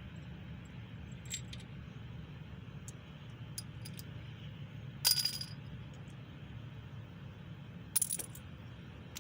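Light clicks and two sharper, ringing metal-on-metal clinks, about five and eight seconds in, as metal engine parts and tools are handled over a steady low background rumble.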